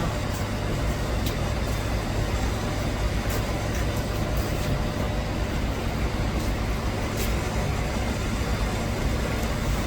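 Steady low machine drone, engine- or motor-like, with a few faint sharp ticks over it.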